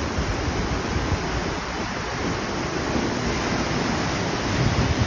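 Rushing, churning water in a canal, a steady noisy wash, with wind buffeting the microphone as an uneven low rumble.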